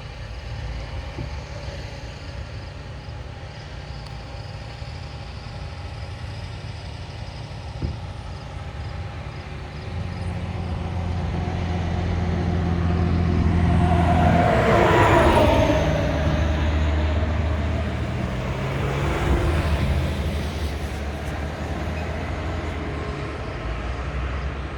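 Heavy engines of potato-harvesting machinery and trucks running with a steady deep drone, which swells and peaks in a loud rise and fall about halfway through, as a vehicle comes close and moves away.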